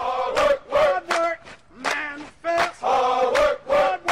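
A group of men chanting in unison in a steady rhythm, a military marching cadence.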